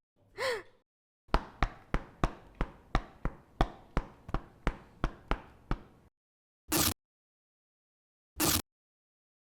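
Hand-made foley: a short sound falling in pitch, then a run of about sixteen quick light knocks, roughly three a second, then two short bursts of noise well apart.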